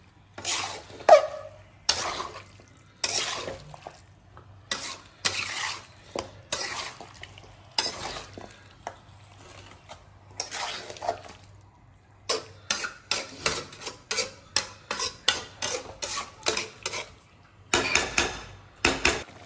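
Spatula scraping and turning chunks of masala-coated chicken around a metal wok, with separate strokes spaced out at first and then a quicker run of about three strokes a second past the middle. This is the kasha stage, dry-frying the chicken so its water cooks off.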